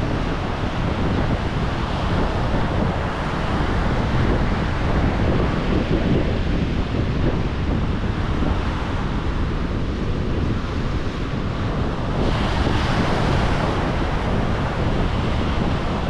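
Atlantic Ocean surf washing steadily, with wind rumbling on the microphone. A brighter, hissing wash of surf comes in about twelve seconds in.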